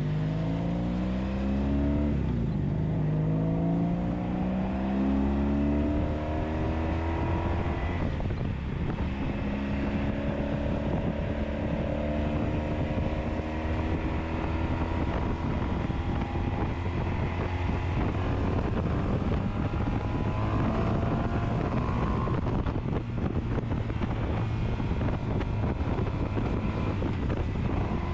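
1983 Honda Sabre's V4 engine pulling away and accelerating up through the gears, its pitch rising with a shift about two seconds in and another about eight seconds in, then settling to a steadier cruise. Heavy wind noise on the microphone runs underneath.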